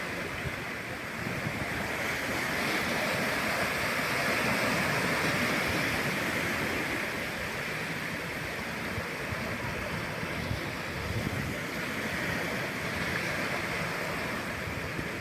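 Atlantic surf washing onto the shore, a steady rush of breaking waves that swells and eases slowly, with some wind on the microphone.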